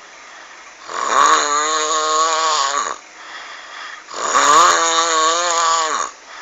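A person snoring with a pitched, frog-like tone: two long snores of about two seconds each, each dropping in pitch as it ends, with quieter breathing between them.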